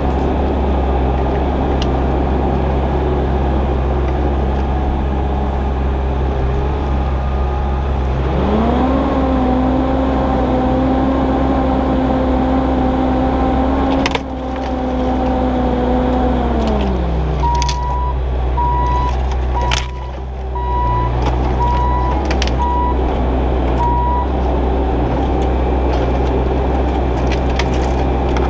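Diesel engine of a heavy construction machine running steadily, revving up about eight seconds in and holding higher until it drops back to idle near the middle. A backup alarm then beeps repeatedly for several seconds, with a few sharp knocks.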